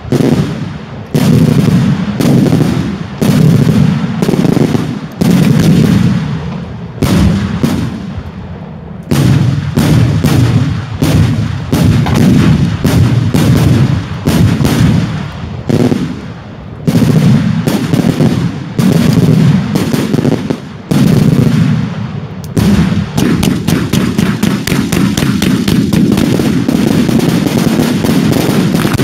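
Daylight fireworks display: a steady barrage of loud explosive reports, in clusters with brief lulls. Toward the end it turns into a rapid, dense volley of bangs.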